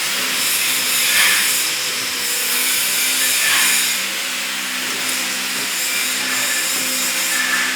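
Homemade stone-cutting saw running, a steady hiss over a low motor hum, with its water feed running onto the blade.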